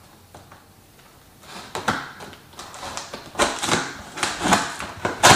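A paring knife slitting the packing tape along a cardboard box's seam: a run of scratchy cuts and tape tearing that starts about a second and a half in, the loudest sharp rip near the end.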